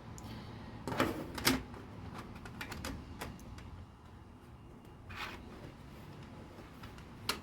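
LEGO bricks being handled and pressed together: a misplaced piece is pulled off and refitted one stud over. Two sharp clicks come about a second in, then lighter scattered clicks, and another click near the end.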